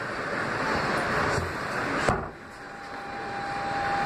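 R160 subway train running through a tunnel with a steady rumble and hiss. About two seconds in there is a sharp knock and the noise briefly drops, then a steady high whine sets in and grows louder.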